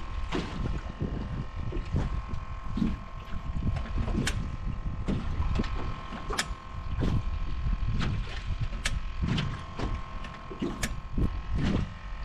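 Wind on the microphone and small waves knocking against the aluminum jon boat's hull, over the steady whine of a spot-lock bow trolling motor holding the boat in position.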